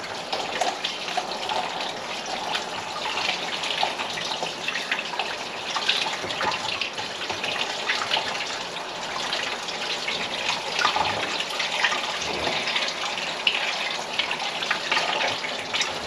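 Water sloshing and splashing in a bucket as gloved hands work in it, with many small irregular splashes and drips throughout.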